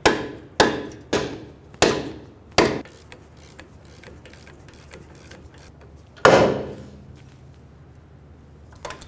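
Hammer blows on the steel front suspension at the lower ball joint: five sharp strikes about half a second apart. About six seconds in comes one loud metallic bang that rings.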